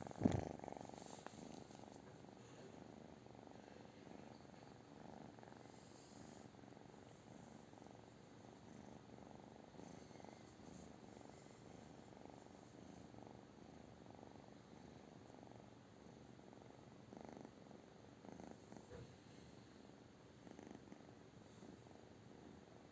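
British shorthair cat purring softly and steadily, after a short louder thump at the very start.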